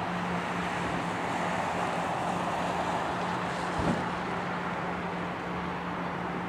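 Road traffic: a steady hiss of cars passing, swelling briefly as one goes by, with wind on the microphone and a steady low hum underneath. A single short thump comes about four seconds in.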